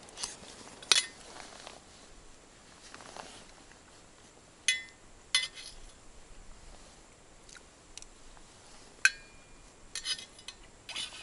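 A metal spoon clinking against a stainless-steel food thermos as food is scooped out and eaten. Several sharp clinks, some with a short ring, spaced a few seconds apart, with a cluster near the end.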